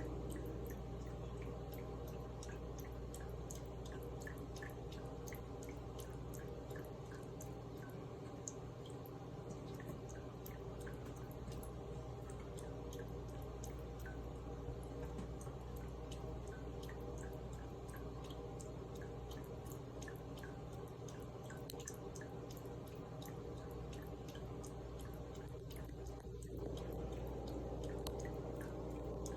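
Tap water running and dripping into a sink, with many small irregular splashes, over a faint steady hum.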